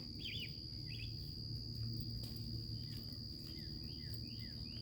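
Insects trilling on one steady high note, with birds calling short repeated chirps over it.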